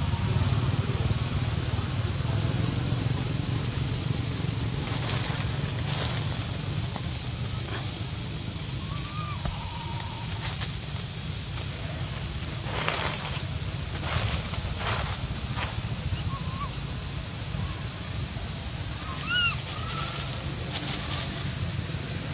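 Steady, high-pitched insect chorus droning without a break, over a low rumble. A few short chirps sound near the middle and near the end, with some brief rustles in between.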